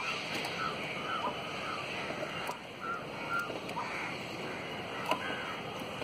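Steady outdoor hiss with some wind on the microphone, small birds chirping now and then, and a few light clicks from hands handling the plastic alarm controller box and its wiring.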